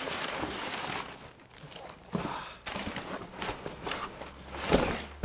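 Crumpled brown kraft packing paper crinkling and rustling as it is pulled out of a cardboard box, with separate louder rustles about two, three and a half, and nearly five seconds in, the last the loudest.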